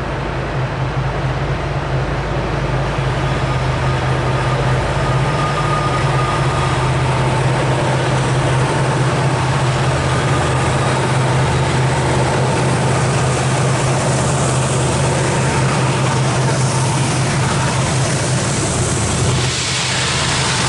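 Approaching diesel-electric locomotives, an EMD SD70ACe and a GE ES44AC, working hard under full load to lift a long oil tank train up a steep grade. Their engines make a steady low drone that grows louder over the first several seconds and then holds, with the lead unit arriving near the end.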